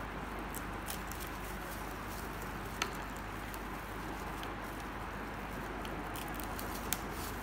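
Plastic cling film crinkling and crackling as gloved hands stretch and press it over a plastic bowl, with scattered small clicks and two sharper clicks, about 3 s and 7 s in, over a steady background hiss.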